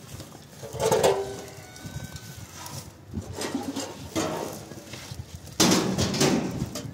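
Farm animals calling: a loud call about a second in, smaller ones after it, and a longer loud call near the end.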